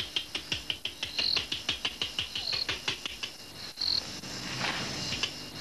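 A man calling a tame bat with a fast run of clicking mouth sounds, about six a second, broken by a short high squeak roughly every second and a half, with a brief hiss near the end.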